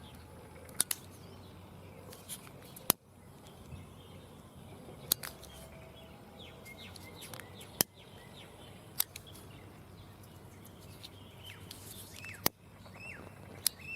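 A lighter clicked sharply about eight times, a second or more apart, to melt the trimmed end of the fishing line. Birds chirp in the background.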